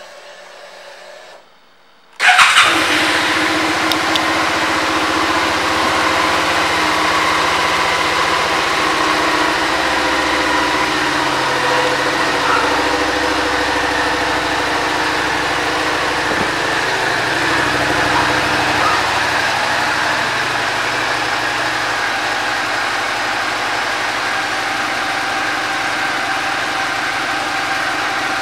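Suzuki SV650's 645 cc V-twin engine starting about two seconds in, then idling steadily.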